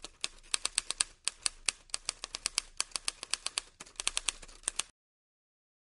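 Manual typewriter typing: a rapid, uneven run of sharp key strikes, several a second, that cuts off about five seconds in.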